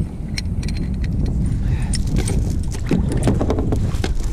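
Metal chain of a small folding grapnel anchor clinking and rattling in gloved hands as it is paid out over the side of a kayak: a scattered run of sharp clinks over a steady low rumble.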